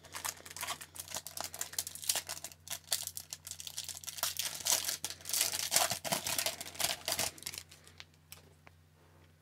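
Foil wrapper of a 2019-20 Upper Deck Series 2 hockey card pack crinkling and tearing as it is ripped open by hand. A dense run of crackles that dies away about eight seconds in.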